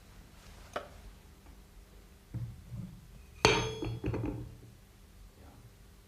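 Metal striking metal: a sharp, ringing clink about halfway through, followed by a few duller knocks, with soft clicks before it, as when steel parts or tools are handled or set down.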